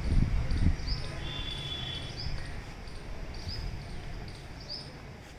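A bird calling over and over with a short, high, arching note about once every second and a quarter, with low rumble in the first second.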